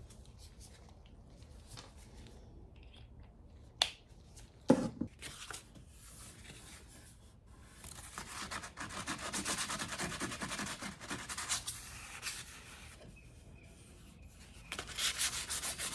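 Sandpaper rubbing over a laminate drawer front patched with CA glue, in runs of rapid scratchy strokes in the second half of the clip and again near the end. Two sharp knocks come about four to five seconds in.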